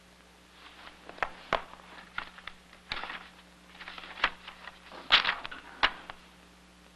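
Paper rustling and shuffling on a desk, mixed with a run of sharp clicks and knocks from things being handled. The loudest knocks come about five to six seconds in.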